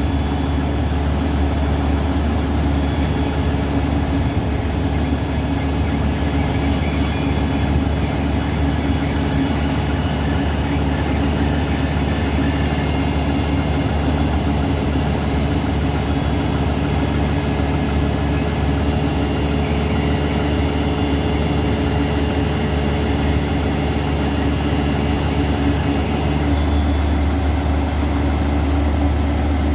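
Ditch Witch JT24 horizontal directional drill running steadily: its diesel engine and hydraulic drive hum while the carriage pushes and rotates the drill rod into the bore. Thin high whining tones sit over the engine note. About 26 seconds in, the note changes: some of the tones drop out and the low drone grows stronger.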